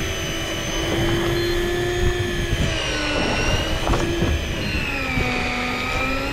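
Electric deep-sea fishing reel winding in a hooked fish, its motor whining steadily, the pitch sagging and recovering as the fish pulls against it.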